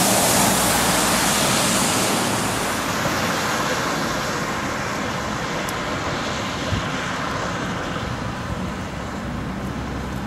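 Road traffic on a wet street: a heavy lorry passes close by with loud tyre hiss for the first two to three seconds. After that comes a quieter, steady background of distant traffic.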